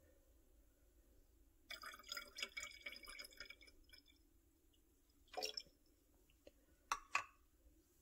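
Flavour syrup poured from a small cap into a bottle of freshly carbonated water: a short trickling pour lasting about a second and a half. A few light knocks and clicks follow later.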